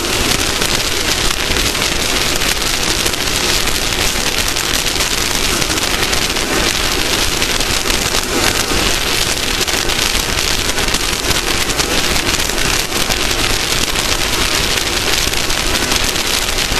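Off-road race vehicle at speed: a steady, loud rushing noise peppered with many small ticks, with no clear engine note standing out.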